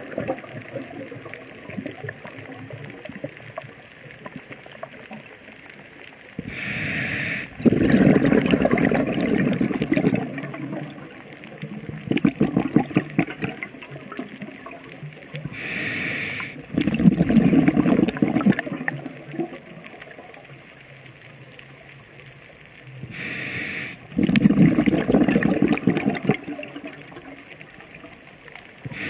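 Scuba diver breathing through a regulator underwater. Each breath is a short hiss as air is drawn in, followed by about two seconds of rumbling exhaled bubbles. The cycle repeats three times, about every eight seconds, with a faint crackle in the quieter gaps.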